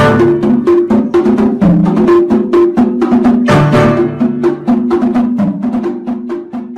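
Background music with a quick, even percussive beat of wood-block-like clicks over a repeating melody, fading out near the end.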